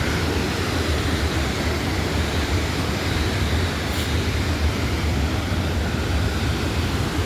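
Crescent Falls waterfall rushing: a steady, unbroken noise of falling water.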